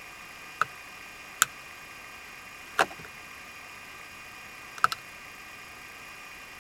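Four short sharp clicks at uneven intervals, the last a quick double, over a steady electrical hiss.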